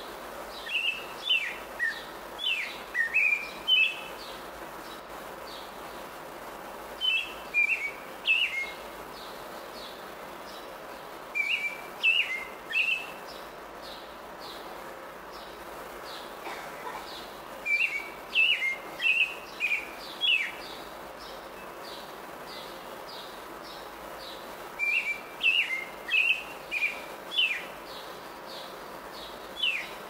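American robin singing: short phrases of a few slurred notes, repeated every few seconds with pauses in between.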